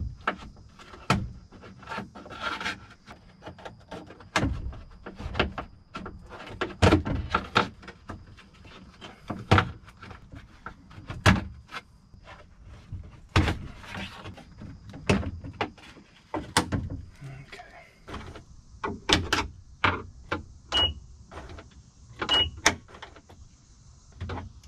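Plastic trim clips and the inner trim panel of a 2018 Honda Ridgeline in-bed trunk lid being pried loose with a plastic pry tool: a long run of irregular sharp clicks, snaps and knocks.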